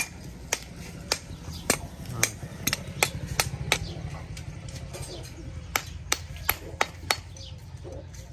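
Farrier's hand tools striking an iron horseshoe and hoof: a run of sharp metallic taps, about two or three a second, with a pause of about a second midway, as the old shoe is worked off the hoof.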